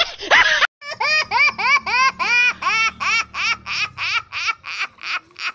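Laughter in a fast, even run of 'ha' syllables, about four a second, each rising and falling in pitch and growing breathier toward the end. It is preceded by a short burst of other laughter that cuts off abruptly under a second in.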